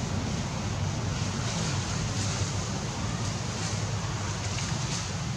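Steady outdoor background noise: a low rumble with an even hiss over it, and no distinct event.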